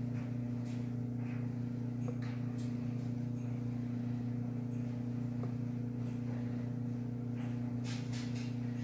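Steady low electrical hum at an unchanging level, with scattered faint clicks and ticks, while thick cake batter is poured from a glass bowl into a Bundt pan.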